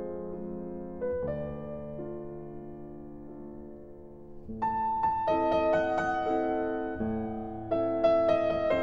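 Slow keyboard music of held notes and changing chords, soft at first and louder and brighter from about halfway through.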